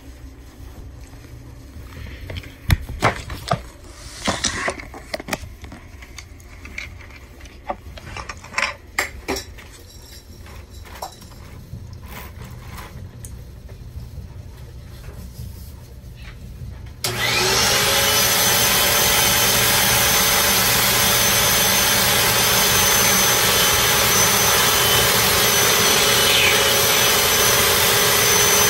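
Scattered clicks and knocks of plastic LEGO bricks being handled. About two-thirds of the way in, a vacuum cleaner switches on abruptly and runs loudly and steadily with a faint high whine. It supplies the suction that drives a LEGO V12 vacuum engine.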